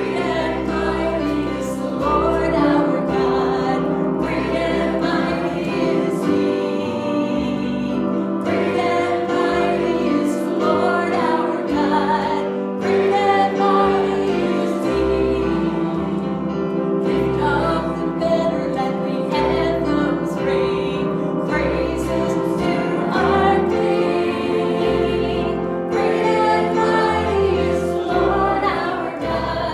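Group singing of a hymn, several voices together over instrumental accompaniment with a changing bass line.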